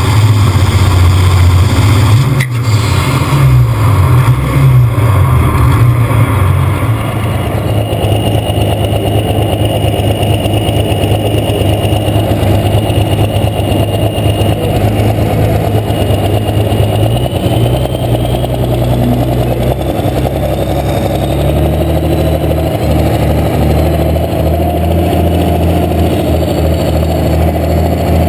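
International 1066 pulling tractor's six-cylinder diesel engine running hard under full load, belching black smoke from its stack. About seven seconds in it drops to a lower, steadier level, and later a faint high whistle rises in pitch over it.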